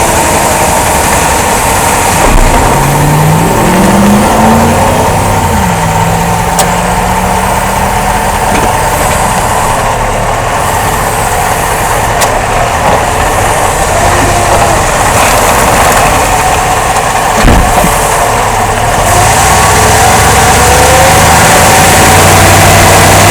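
2005 Jeep Grand Cherokee's 5.7 L V8 running under way, its engine pitch rising as it accelerates early on, with a steady whine and a few sharp thumps from the driveline spaced several seconds apart. The thumping comes from a worn rubber bushing in the front drive axle's rear support and a bad front driveshaft universal joint.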